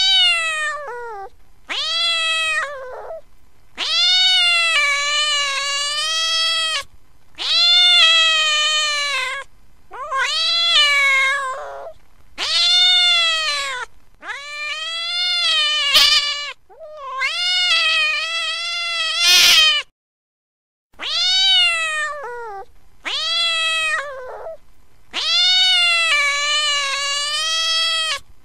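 Domestic cat meowing over and over: about a dozen long, drawn-out meows separated by short gaps, the longest lasting two to three seconds, each dropping in pitch as it ends. There is a pause of about a second about two-thirds of the way through.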